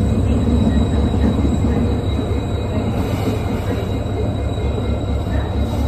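EMD diesel locomotive pulling a passenger train out, its engine giving a deep pulsing rumble that eases a little as it moves off, with the coaches rolling past.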